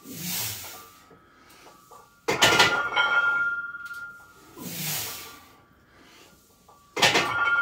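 A barbell loaded with cast iron plates set down hard twice, about five seconds apart, each time with a loud metallic clang and the plates ringing on. A forceful breath comes before each clang, as the lifter grinds through reps of a heavy pull.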